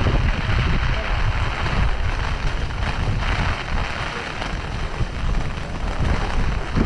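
Typhoon wind buffeting the microphone with a low rumble, over the steady hiss of falling rain.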